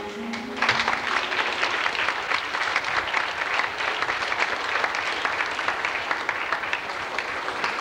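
Audience applauding: dense, steady clapping that breaks out as the dance music ends about half a second in.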